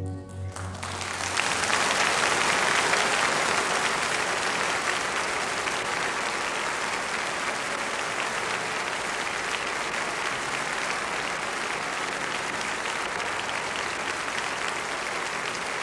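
Large concert-hall audience applauding. The orchestra's final chord dies away in the first moment, the clapping breaks out about a second in, swells quickly and then holds steady.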